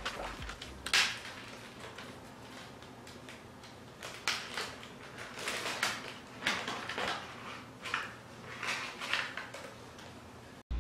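Playing cards and their packaging being handled: scattered light clicks and rustles, with a sharper click about a second in.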